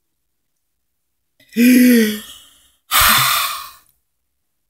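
A person groans with a short, held voiced 'ugh', then about a second later lets out a loud, breathy sigh: an exasperated reaction to his own slip of the tongue.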